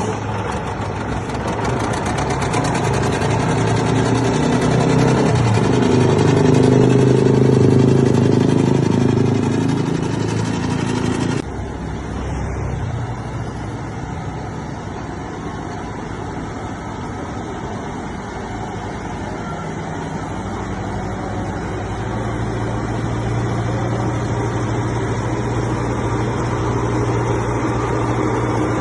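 Heavy vehicle engines running steadily. An abrupt change about eleven seconds in gives way to a quieter, steady engine hum.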